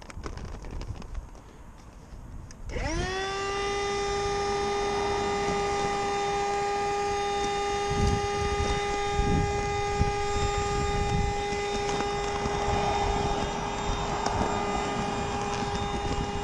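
A few clicks and knocks, then an electric air pump switches on about three seconds in, spins up fast and runs with a steady hum while inflating the inflatable boat through a hose on its valve.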